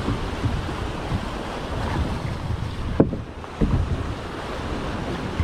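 Wind buffeting the microphone over sea water lapping against a small boat, with a sharp knock about three seconds in and a duller thud just after.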